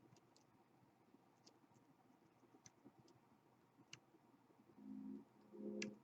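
Faint, scattered clicks of a lock pick and tension wrench working the pins inside a KABA Gemini dimple lock. Two short low tones come near the end.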